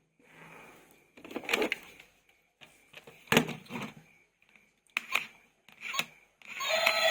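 Plastic toy vehicles and their packaging being handled: soft rustling and several sharp plastic clacks, the loudest about three seconds in. Near the end a battery-powered toy's loud electronic alarm-like sound starts up.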